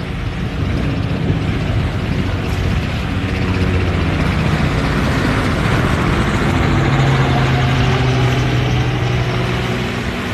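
Motorboat engines running, a low droning hum over wind and water noise. The hum grows louder from about the middle and eases near the end as a boat goes by.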